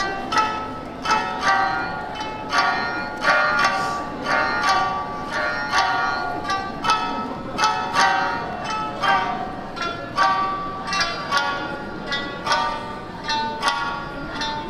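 Plucked-string music in a traditional Japanese style: a steady run of sharply struck, quickly fading notes.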